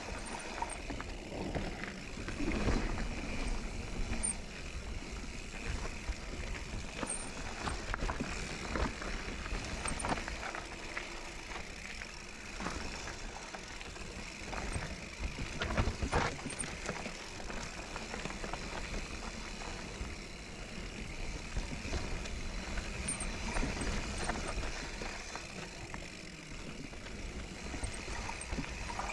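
Kona Process 153 mountain bike riding down a dirt singletrack: steady tyre noise on the trail, with frequent short clatters and knocks as the bike goes over roots and bumps.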